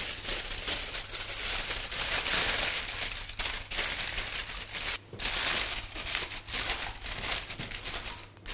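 Aluminium foil lined with baking paper being folded and crimped shut by hand into a packet, crinkling steadily with many small crackles and a brief pause about halfway.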